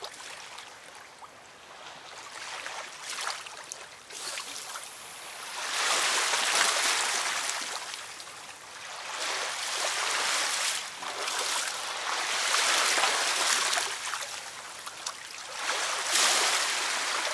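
River water washing and lapping at the bank, a rushing sound that swells and dies away again every few seconds.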